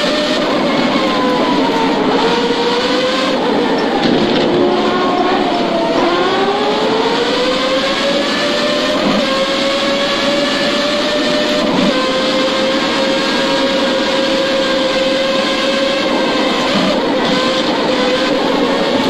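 Formula 1 car engine running at racing speed. Its pitch drops twice early on as the car slows, then climbs and holds at high revs for the rest of the time.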